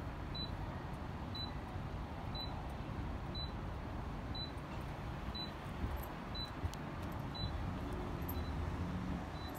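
Steady outdoor background noise with a short, high electronic beep repeating about once a second.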